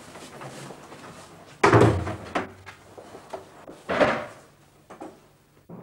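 Heavy wooden bangs and knocks as furniture and boxes are handled and set down. The loudest bang comes about a second and a half in, a second about four seconds in, with lighter knocks between.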